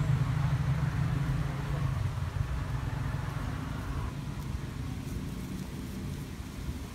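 Engine of a motor vehicle running at idle: a steady low hum, louder in the first couple of seconds and then fading.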